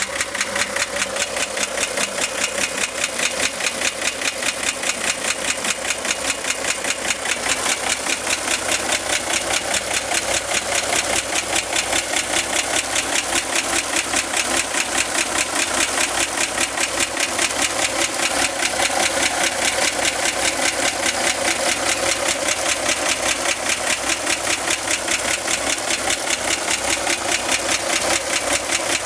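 1965 Chevrolet Corvair's air-cooled flat-six engine idling with a fast, regular ticking. The owner places the tick at the top of the engine where the cooling fan sits and suspects the fan belt, though tightening the belt has reduced it only a little.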